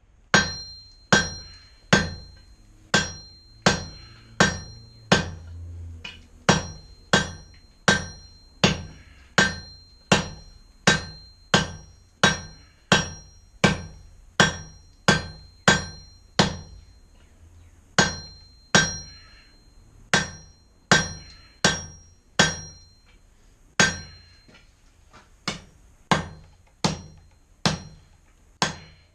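Blacksmith's hammer striking hot steel on the anvil horn, drawing the bar down: steady blows about one and a half a second, many followed by a high ring from the anvil, with a short pause about two-thirds of the way through.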